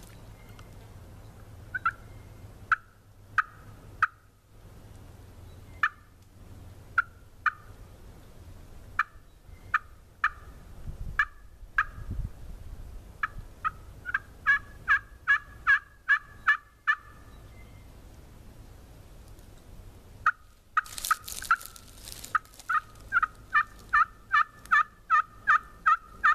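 Hand-held turkey call worked in strings of short, sharp turkey calls. They are spaced out at first, then come in quick runs of about four or five a second in the middle and again toward the end.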